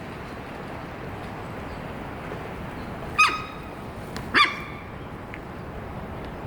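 Ezo sika deer doe giving two short, sharp alarm calls a little over a second apart, over steady background noise.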